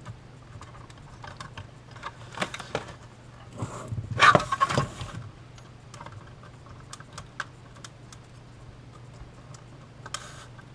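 Small plastic clicks and rattles as a flip-clock mechanism and its wires are handled and pressed back into a plastic clock case, with the loudest clatter about four seconds in. A steady low hum runs underneath.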